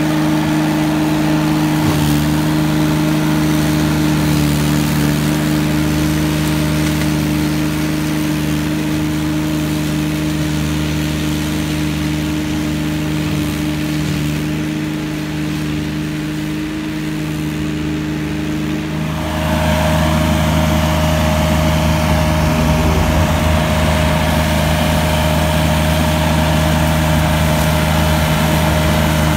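McConnel Robocut remote-controlled tracked flail mower running steadily under load, its engine and spinning flail head making a continuous drone. It fades a little as the machine moves off. About two-thirds of the way in it turns louder and closer, and a steady higher whine joins.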